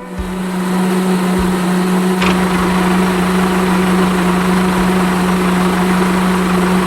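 A small motor running steadily with an even hum.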